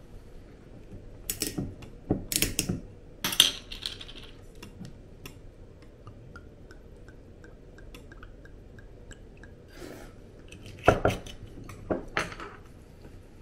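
Dishes and cutlery clinking and knocking against each other in a few short clusters, with a faint run of small even ticks in the middle.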